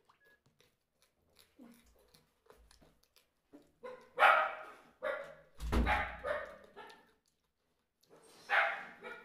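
A pet dog barking: about five short barks in the second half, the loudest near the middle, after a few seconds of faint small clicks.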